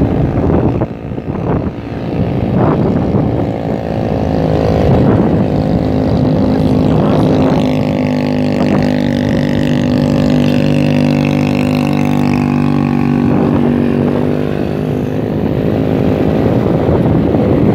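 Motorcycle engine running at a steady pitch, under load on a continuous steep uphill climb.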